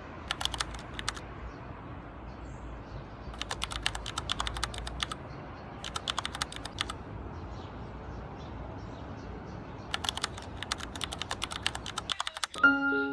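Keyboard typing: four short runs of rapid keystrokes over a low steady hiss. Soft melodic music comes in near the end.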